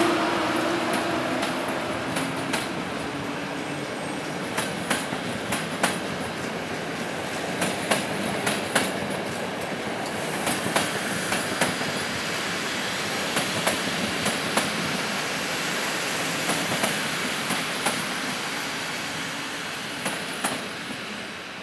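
Passenger coaches of a departing train rolling past slowly, their wheels clicking over rail joints in irregular clusters over a steady rumble. The hum of the EU07 electric locomotive fades away over the first couple of seconds. The sound grows fainter near the end as the train draws away.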